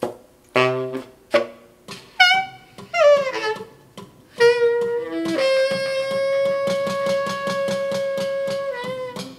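Tenor saxophone improvising: a run of short stabbed and bent notes, then a long held note from about five seconds in, with a quick pulse running through it, that falls off just before the end.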